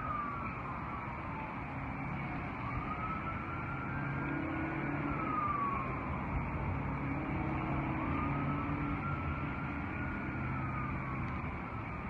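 Emergency vehicle siren on a slow wail, its pitch rising and falling about every five seconds, over a steady low engine hum.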